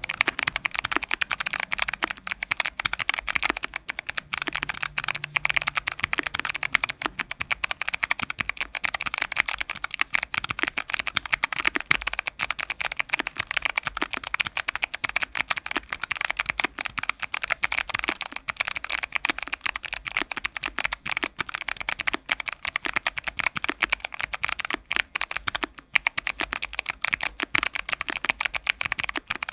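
Mechanical keyboard with Kailh Box Jade clicky switches being typed on continuously: a fast, dense stream of sharp clicks.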